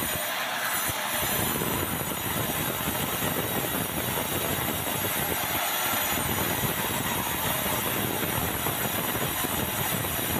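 Sawmill band saw cutting steadily through a large timber of dry bengkirai (yellow balau), a very hard hardwood, with a loud, continuous noise from the blade in the wood and the machine running.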